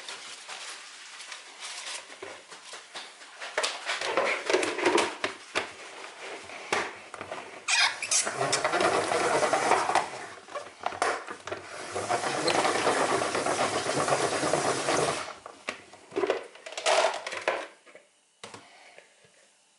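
Hand-operated plastic salad spinner spinning wet leaves dry, in a few spells that stop about three quarters of the way through. Handling clatter of the leaves, basket and lid comes before and after the spinning.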